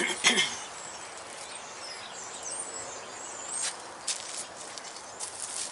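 Birds chirping over a steady outdoor background, with a sharp knock about a third of a second in and a scatter of short high clicks near the end.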